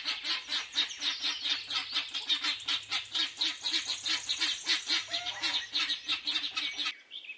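Guinea fowl calling: a fast, harsh, chattering run of about six calls a second that stops shortly before the end.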